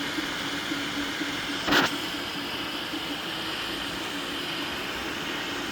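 Anycubic 3D printer running mid-print: stepper motors hum at a steady pitch that stutters on and off as the print head moves, over the steady whir of its fans. One short knock a little under two seconds in.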